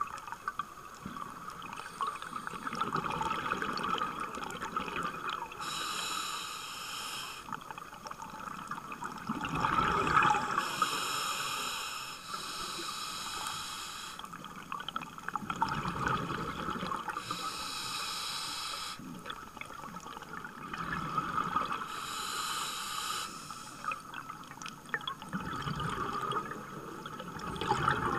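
Scuba diver breathing through a regulator underwater: a hissing inhale alternates with a bubbling, rumbling exhale every five seconds or so, muffled through the camera's underwater housing.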